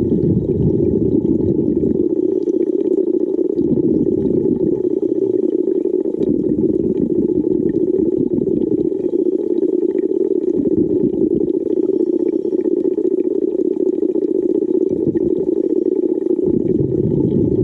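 Steady, muffled water noise with deep rumbles that come and go every second or two.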